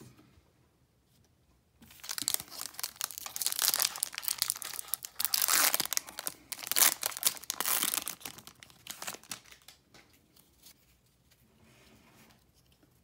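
Foil wrapper of a 2019 Topps Series 1 baseball card pack crinkling and tearing as it is ripped open by hand, starting about two seconds in and lasting some seven seconds, then dropping to faint rustling.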